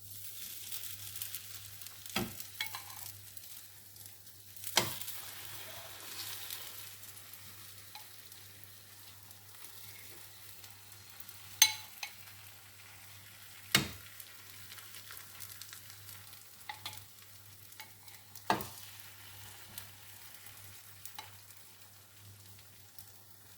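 Egg batter sizzling in an oiled frying pan, a steady hiss, with about five sharp knocks of a utensil against the pan or bowl along the way.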